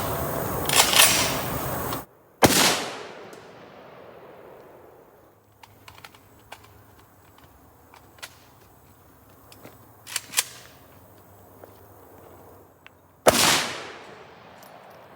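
Two high-powered rifle shots about eleven seconds apart, each a sharp crack followed by a long fading echo. The first is a .308 round from an FN SCAR 17S. A few light clicks come a few seconds before the second shot.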